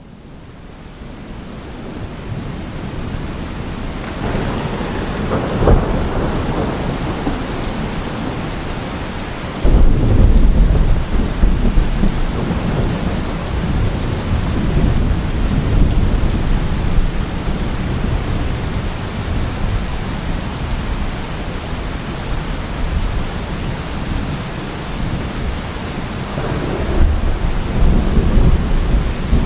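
Steady rain with rolling thunder, fading in at the start. A rumble of thunder comes about five seconds in, a sudden loud clap and long rumble about ten seconds in, and more rumbling near the end.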